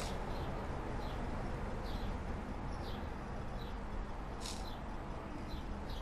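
Small birds chirping out of sight: short, high chirps that drop in pitch, about one every second, over steady low background noise.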